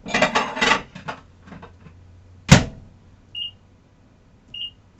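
A covered plate scraping and rattling into a microwave oven, the door shut with a loud bang about two and a half seconds in, then two short high beeps from the microwave's keypad as half power and 16 minutes are set.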